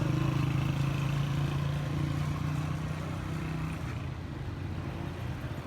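A motor vehicle's engine running steadily at low revs, fading away about two thirds of the way through.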